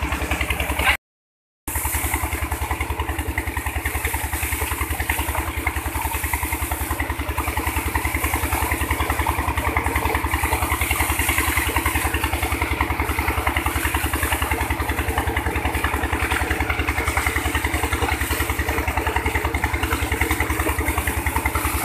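A tubewell's pump engine running steadily with a fast, even beat, over the rush of water gushing from its outlet pipe into the tank. The sound drops out briefly about a second in.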